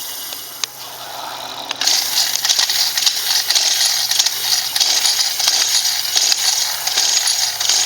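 Dense metallic rattling and clicking, starting about two seconds in, over a faint low hum.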